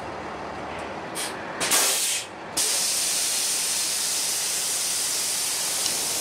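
Steady hiss, with a few short louder bursts in the first two and a half seconds before it settles into an even hiss.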